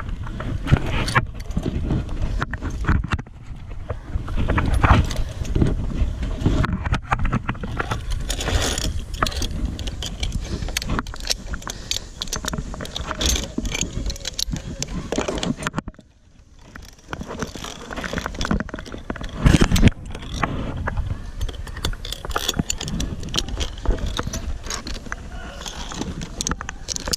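Metal carabiners and a belay clip trolley clinking and scraping on steel cable, with wind rumbling on the microphone.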